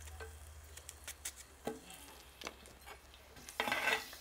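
Onion pieces in hot oil in a heated clay cazuela: faint sizzling with a few soft taps, then a louder sizzling hiss near the end as they are stirred with a spatula.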